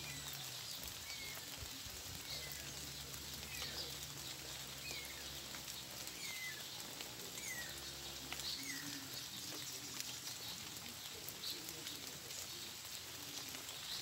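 Light rain pattering steadily on leaves and grass. A bird repeats a short falling call about once a second, and a low distant hum stops about eight seconds in.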